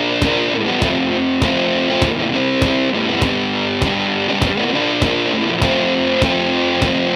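Background rock music: distorted electric guitar over a steady drum beat.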